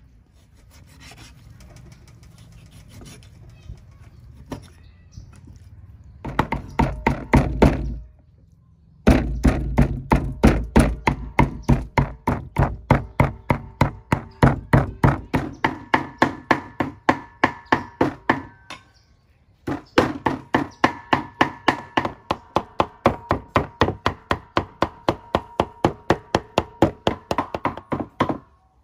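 Meat cleaver chopping raw pork on a thick wooden chopping board, mincing it into ground pork. The first few seconds are quieter; then comes a long run of sharp, even knocks about three a second, broken by two short pauses.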